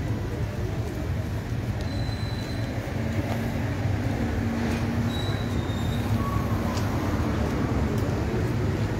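Steady low rumble of a vehicle engine idling nearby, most likely the hearse's engine.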